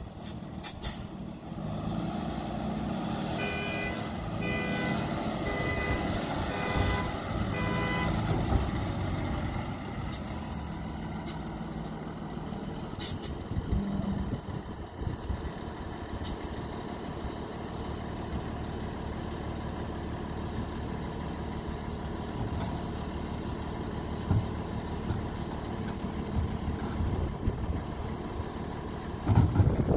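Freightliner M2 garbage truck's diesel engine running steadily while its reversing alarm beeps about five times, roughly once a second, a few seconds in. A few knocks near the end.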